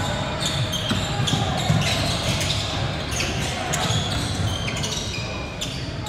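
Indoor gym game sounds: a ball bouncing on a hard court, short high squeaks, and background crowd chatter in a large echoing hall.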